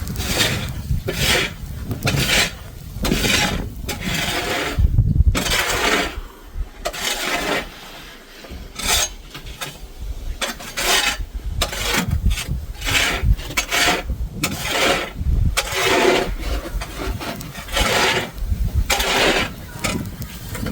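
Repeated rough scraping strokes, roughly one every second, some with a low thud.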